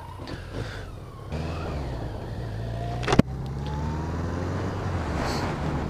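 BMW K-series motorcycle engine pulling away, getting louder about a second in and climbing in pitch as the bike accelerates, with one sharp click about three seconds in.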